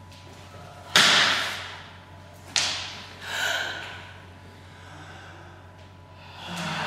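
Cloths snapped and whipped through the air: a sharp loud snap about a second in with a rushing swish fading after it, a second snap near the middle, and a softer breathy rush near the end.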